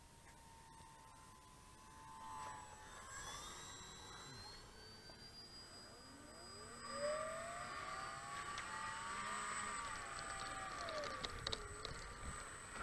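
Faint whine of a radio-controlled model airplane's motor and propeller in flight. Its pitch slides up and down as the plane throttles and passes, and it grows louder in the second half.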